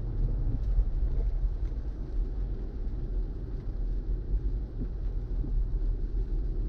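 Steady low rumble and hiss of tyre and road noise heard inside the cabin of a BMW i4 M50 electric car, with no engine sound.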